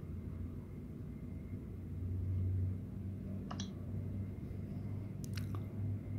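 Smartphone being handled and unlocked: a few short clicks, one about three and a half seconds in and a couple more about five seconds in, over a steady low hum.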